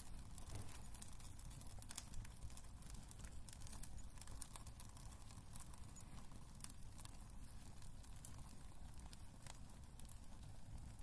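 Quiet wood fire crackling in a fireplace: irregular sharp snaps and pops over a low, steady rumble of the flames.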